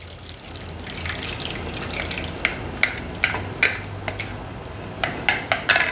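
Wet, sticky batter of corn vermicelli in palm-sugar syrup and tapioca being poured from a bowl into a plastic-lined baking pan, with a run of short wet slaps and clicks, about two a second, coming faster near the end.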